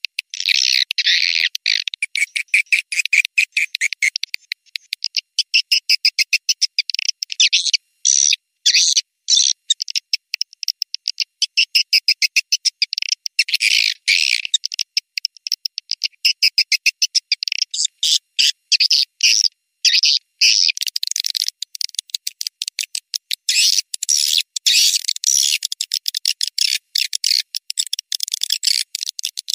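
Recorded swiftlet calls: a dense, rapid, high-pitched twittering of chirps, many a second, broken by short gaps. It is a lure track played in swiftlet houses to draw swiftlets in to roost.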